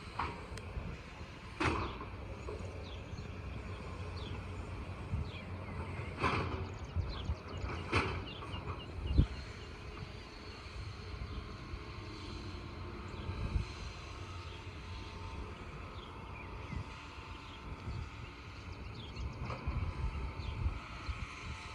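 Heavy diesel machinery working track ballast: a steady low engine rumble with several sharp clanks and knocks, the loudest about nine seconds in.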